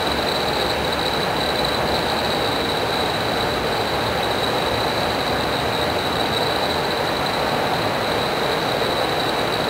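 Steady machinery noise in a research reactor hall, an even rushing hum with a constant high-pitched whine over it.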